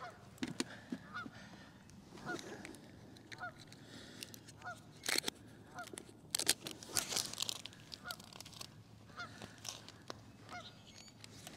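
Geese honking, faint short honks about once a second. Around the middle there are a few sharp clicks and rustles of tarp and gear being handled.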